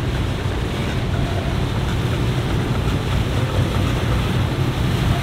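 Low, steady rumble of a boat's engines running at slow speed, mixed with wind noise on the microphone.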